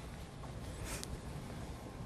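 Faint rustling of a dress shirt's fabric handled while it is buttoned, with one short, sharper rustle about a second in, over a low steady room hum.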